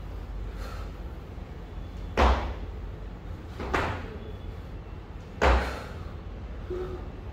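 Three sudden, short, sharp sounds about a second and a half apart from a kettlebell lifter working through reps, the first and last the loudest.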